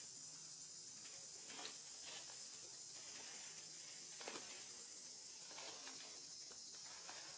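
A steady high-pitched insect chorus, with a few faint crackles of dry leaf litter being handled, the sharpest about four seconds in.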